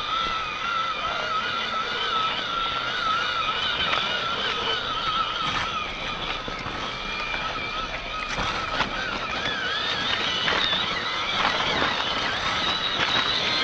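Small RC truck's electric motor and gearbox whining, the pitch wavering up and down with the throttle, with scattered knocks and clatter from the truck moving over rough ground, several sharp knocks in the second half.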